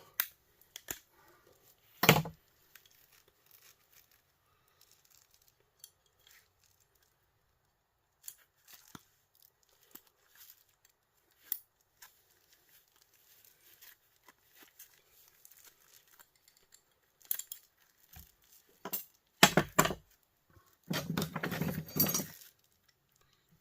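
Scattered clicks, clinks and knocks of small metal and plastic heater parts and hand tools being handled during dismantling. There is a sharp knock about two seconds in, a cluster of knocks near the end, and a short stretch of scraping and rattling just before it ends.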